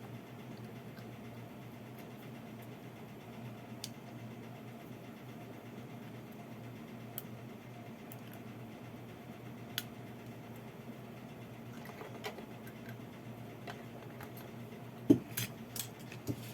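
Faint steady electrical hum with scattered small clicks and taps of tools and parts being handled on a workbench, a few sharper clicks near the end.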